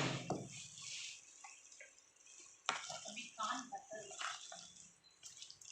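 A sharp knock with a short ringing tail at the start, then a spoon clattering and stirring in a bowl of vegetables, about a second after the middle.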